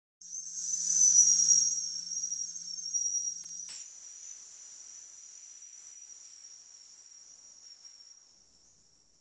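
A high-pitched ringing tone with a slight waver swells in the first second, then fades slowly over several seconds. A faint low hum underneath stops with a sharp click about four seconds in.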